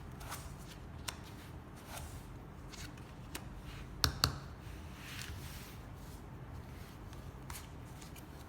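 Playing cards being handled on a table: scattered soft slides and light clicks, with two sharper snaps in quick succession about four seconds in.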